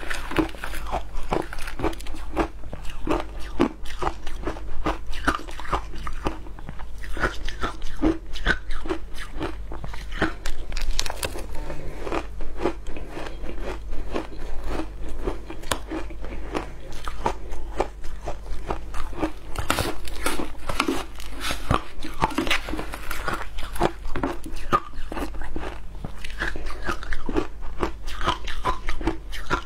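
Close-miked crunching and chewing of matcha shaved ice: a dense, continuous run of small crisp crunches as mouthfuls of ice are bitten and chewed.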